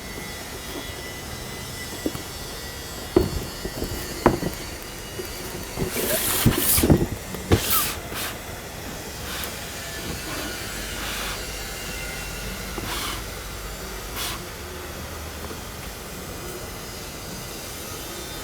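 Steady background hiss with a few sharp taps and knocks, and a cluster of short rustling bursts in the middle: handling noises, as of sneakers and their packaging being handled.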